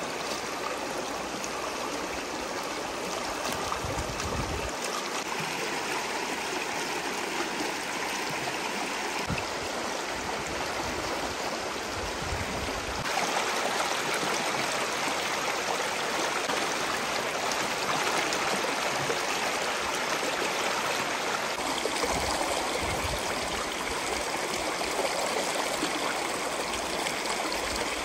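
Shallow stream rushing and burbling over rocks, with occasional splashes as vegetables are swished and rinsed in the water.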